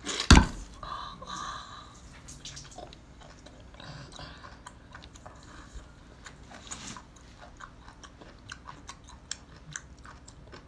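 Biting into a raw geoduck siphon, with one loud, sharp click as the first bite tears off just after the start, then wet, smacking chewing with many small clicks.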